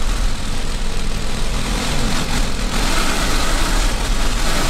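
Wind rushing and buffeting through an open car window at speed, over the rumble of the moving vehicle's engine and tyres.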